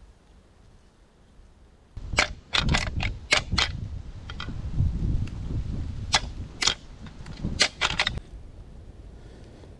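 Deer rattling: hard tines clacked and ground together to mimic two bucks sparring, the call meant to draw in a buck. Starting about two seconds in, there are some six seconds of irregular sharp clacks with lower grinding between them, then it stops.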